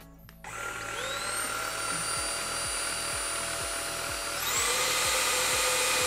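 Xiaomi Jimmy JV71 cordless stick vacuum switched on. Its high-speed motor spins up with a rising whine about half a second in and then runs steadily. About four and a half seconds in it steps up to a higher, louder speed.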